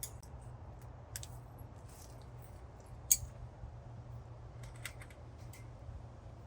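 Scattered light clicks and taps, with one sharper click about three seconds in, over a low steady rumble.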